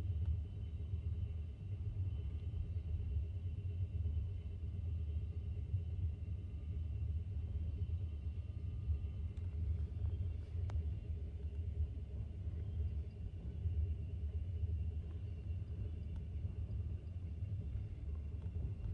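Steady low rumble of a sleeper passenger train running at speed, heard from inside the compartment, with a faint high steady tone above it.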